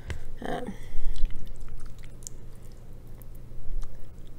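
Chopsticks stirring and lifting sticky, sauce-coated black bean noodles in a plastic takeout bowl, with small wet clicks and a few low thumps about a second in. A short hum of the voice comes about half a second in.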